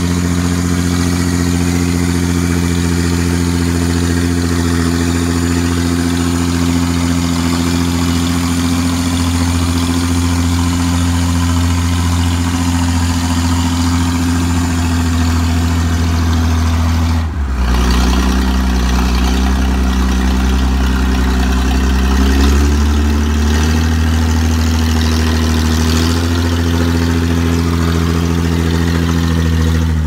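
Hy-Dynamic Dynahoe backhoe-loader's engine running steadily as the machine drives. About halfway through, the engine note changes abruptly.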